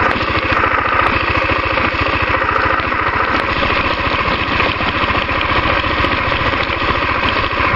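Honda XR250 Tornado's single-cylinder four-stroke engine idling steadily, with an even, rapid firing pulse.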